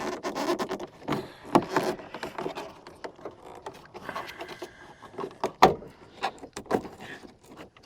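Plastic interior trim cover being worked into place over a post in a pickup cab: irregular rubbing, creaking and clicks, with one sharp click a little past halfway.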